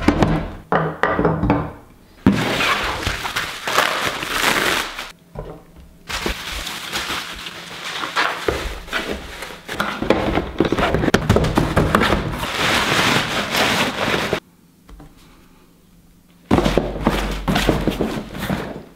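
Packaging being handled on a wooden table: long stretches of crinkling and crackling from bubble wrap and cardboard, with knocks as a box is set down. There are two short quieter pauses.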